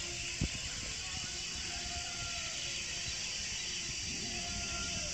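Open-air outdoor ambience: a steady high hiss, an uneven low rumble of wind on the microphone, and a few faint, short, steady tones from far off. A single bump about half a second in, like the camera being knocked.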